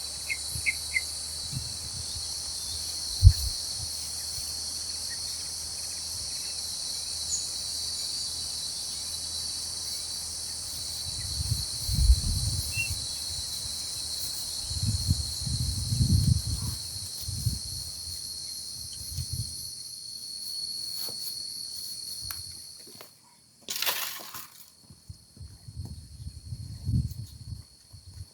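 A steady, high-pitched chorus of insects shrilling, with irregular low thumps and rustles from nearby handling. Near the end the chorus cuts off suddenly and a short rustling burst follows.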